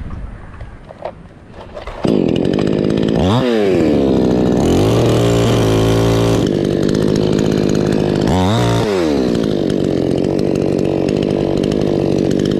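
Two-stroke chainsaw running loud at high revs. It comes in suddenly about two seconds in, and twice the engine speed drops sharply and climbs straight back up.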